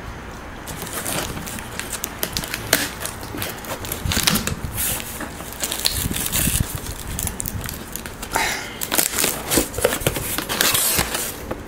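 Cardboard shipping box being opened by hand: a dense run of crackles and rustles, starting about a second in, from the flaps and tape and the brown paper packing inside being handled.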